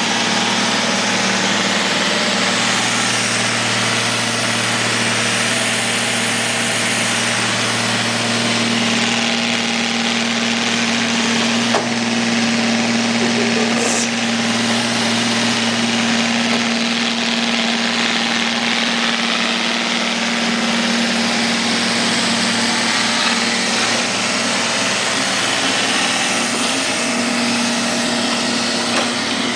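Neato robot vacuum cleaner running: a steady whir of its suction motor and brushes, with a lower hum that drops away a little over halfway through.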